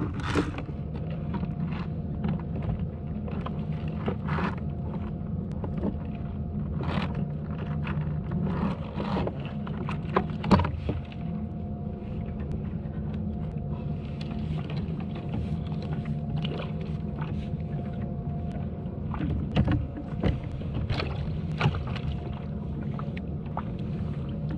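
Scattered clicks and knocks of fishing gear being handled against a plastic fishing kayak's hull, over a steady low hum.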